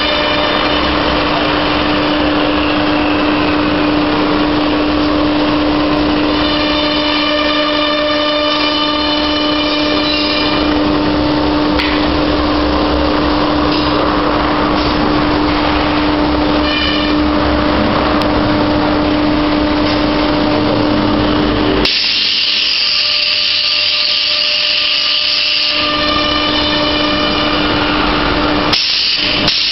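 Milling spindle on a KUKA robot arm running with a steady whine while its cutter carves a block of white foam, a continuous rough grinding hiss. About three-quarters of the way through, the low rumble falls away for a few seconds and a brighter, higher hiss takes over, and it does so again briefly near the end.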